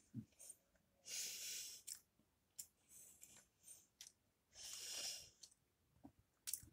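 A man breathing out heavily twice, each breath an airy hiss of about a second, with a few small mouth clicks between.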